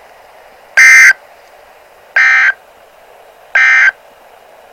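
Emergency Alert System end-of-message signal: three short bursts of buzzy SAME digital data tones, about 1.4 seconds apart, over a faint steady hiss. It marks the end of the alert message.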